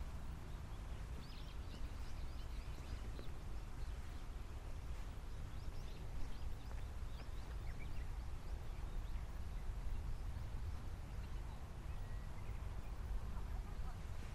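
Wind buffeting the microphone in a steady low rumble, with faint short bird chirps now and then.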